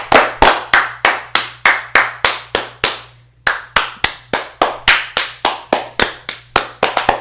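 Hand claps in a steady counted rhythm, about three a second, with a brief break about three seconds in and a quick flurry of claps near the end.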